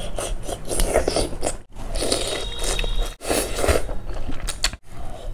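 Close-miked eating sounds: biting into and chewing boiled egg and instant noodles in spicy soup, with wet crackly mouth noises. The sound breaks off in brief silent gaps about every one and a half seconds.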